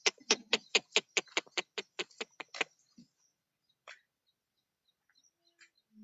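A person making quick tongue clicks, about five a second, to call a goat; the clicking stops a little over halfway through, leaving a few faint ticks.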